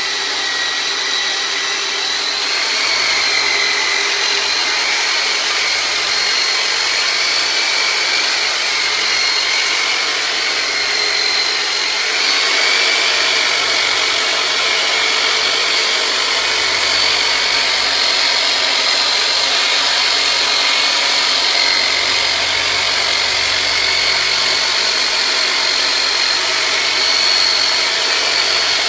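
Turbinator, a handheld electric massage tool, with its motor running continuously with a high whine whose pitch wavers slightly as it is pressed into the muscles holding the hip up.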